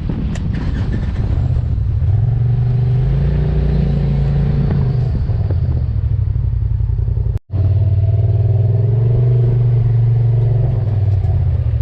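Polaris RZR Turbo side-by-side's engine running at low revs. Its note rises a little, holds, and eases back, then carries on steadily after a brief cut-out.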